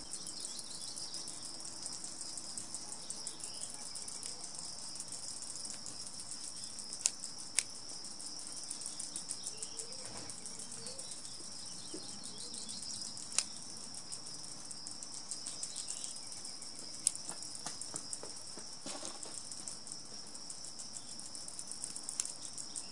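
Steady, rapidly pulsing high chirring of insects, with a few sharp clicks as plastic fuel injectors are handled and pushed into a fuel rail.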